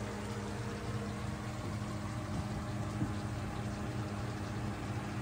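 Pork in coconut milk simmering in a frying pan on a portable electric cooktop, over a steady low electric hum.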